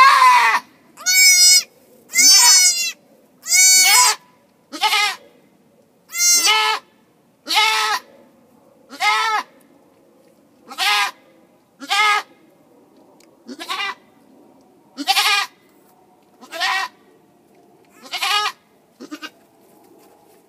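Goat bleating over and over, about fifteen calls roughly a second and a half apart; the first few waver in pitch and the later ones are fainter.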